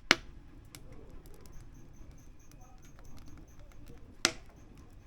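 Firewood burning and crackling with small scattered ticks, and two sharp loud pops, one right at the start and another about four seconds in.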